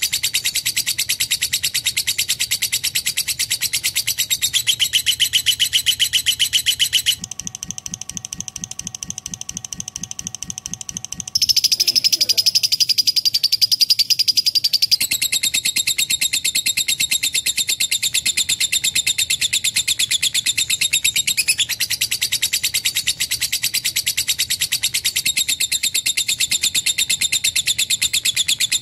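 Lovebird singing a long, fast, unbroken chattering trill. The song drops quieter and lower for about four seconds from roughly seven seconds in, then comes back louder before settling to its steady level.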